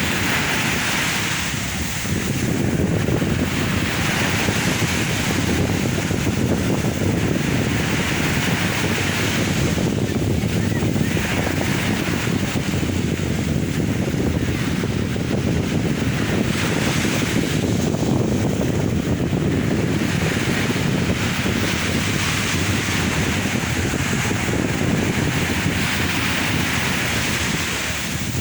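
Sea waves breaking and washing ashore in a continuous heavy rumble, the hiss of surf swelling every three or four seconds, with wind buffeting the microphone.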